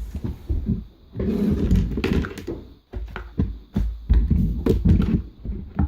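Close handling noise of a smartphone's plastic back cover being pried and pulled off: irregular clicks, knocks and scraping with heavy low rumble.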